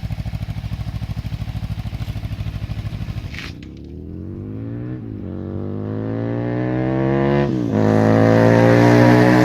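Motorcycle engine idling with an even pulsing beat, then pulling away about three seconds in and accelerating, its pitch climbing and dropping back at two gear changes.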